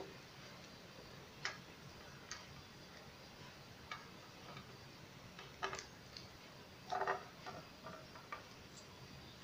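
Irregular plastic clicks and knocks from a black plastic mini hand air pump and its hose being handled and fitted together, with a louder cluster of clicks about seven seconds in.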